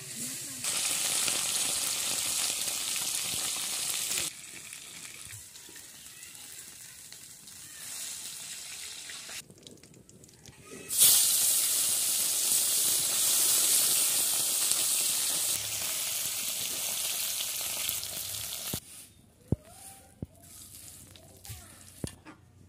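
Small fish frying in hot oil in an iron kadai, a dense sizzle. It is loud for the first few seconds, drops back, then comes up loud and sudden again about eleven seconds in and lasts until about nineteen seconds. A few sharp clicks follow near the end.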